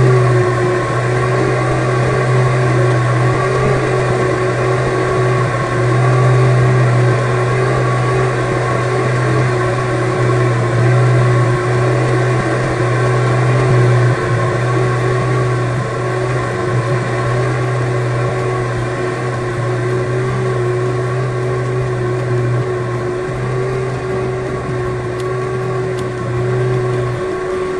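Electric fan motor running, with a loud steady hum and a steady higher whine above it.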